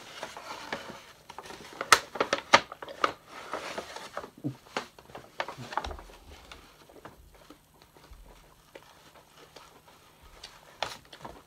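Rustling and crinkling of packaging and paper being handled, as a donut is readied for eating under a paper-bag mask: a quick run of sharp crackles over the first five seconds or so, then sparse, fainter clicks with a short flurry near the end.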